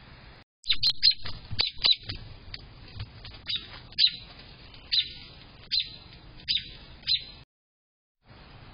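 An American robin's short, sharp high chirps, about a dozen, repeated irregularly one or two a second, some in quick pairs. They stop suddenly near the end, where the recording drops out for almost a second.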